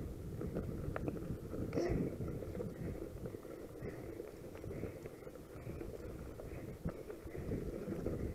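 Mountain bike riding over a gravel track, heard from the rider's camera: a low rumble of tyres on gravel and wind on the microphone, with small knocks and rattles from the bike.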